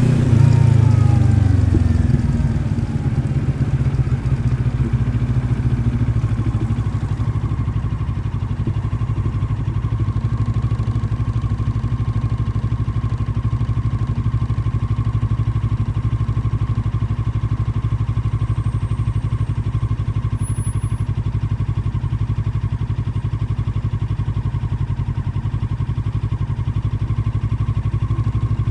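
Moto Morini X-Cape 650's parallel-twin engine coming down from higher revs in the first two seconds, then idling steadily.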